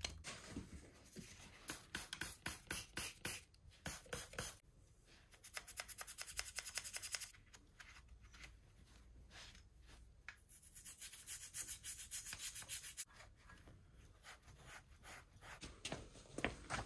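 A cloth rag rubbed briskly back and forth over the engine's metal front casing to clean it. The quick scrubbing strokes come in runs of a second or more, several strokes a second, with short pauses between the runs.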